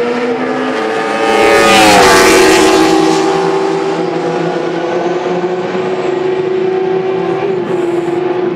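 McLaren Honda MP4/4 Formula 1 car and Honda racing motorcycles passing at speed. The loudest pass comes about two seconds in, with the engine note dropping in pitch as it goes by, and a steady engine note continues after it.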